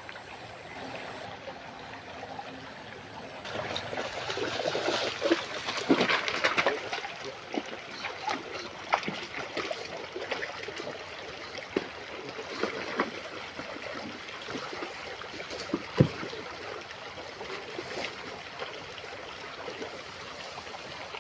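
Shallow stream trickling. From about three and a half seconds in, irregular splashing of something wading across the water, loudest over the next few seconds, with scattered sharp knocks later on.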